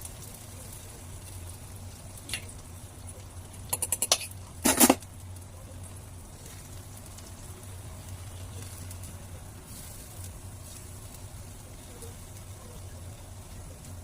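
Eggs and onion frying in a pan with a steady sizzle. A few sharp clicks and knocks come a couple of seconds in, the loudest about five seconds in.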